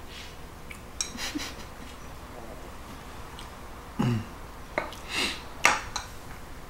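Light clinks and clicks of a plate and utensil being handled while eating, a handful of short separate sounds with the sharpest click about two-thirds of the way through. A short low sound that drops in pitch comes about four seconds in.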